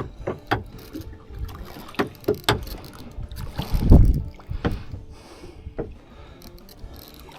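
Knocks and clunks aboard a small fishing boat, with one heavy low thump about four seconds in and a low rumble underneath.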